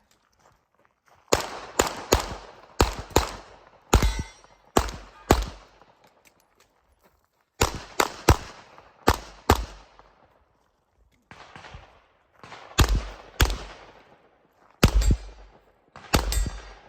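A Glock 34 9mm pistol firing a competition string of about twenty shots, mostly in quick pairs and groups of two or three, with pauses of a second or two between groups as the shooter moves or reloads.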